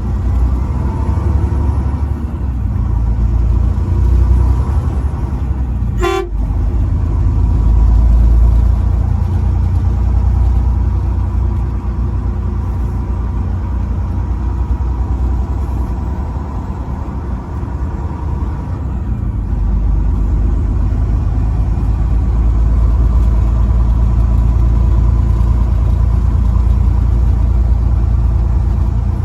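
Truck driving, with a steady low rumble of engine and road noise and a very short blast of its horn about six seconds in.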